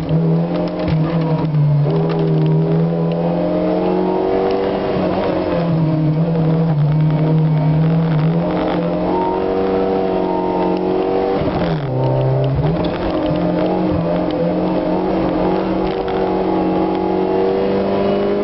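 Race car engine heard from on board at speed, held at high revs with its pitch rising and falling through gear changes; about twelve seconds in it drops briefly and climbs straight back as the driver lifts and accelerates.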